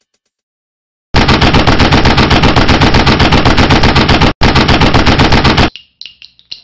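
Machine-gun fire sound effect: a long burst of rapid, evenly spaced shots that starts about a second in, breaks for an instant past the middle, and stops sharply, followed by faint metallic ringing clicks.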